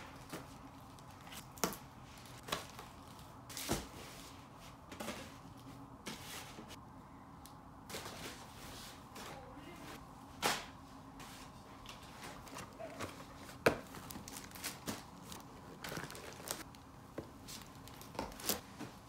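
Grocery items in plastic packaging being set down and moved around on a duvet: scattered crinkles, rustles and soft knocks at irregular moments.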